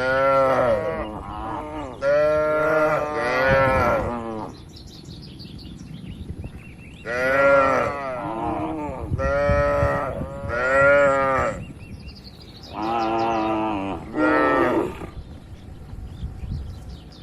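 Cattle mooing in a barn: a run of about eight long calls, several in quick succession, then a pause of a couple of seconds before more calls.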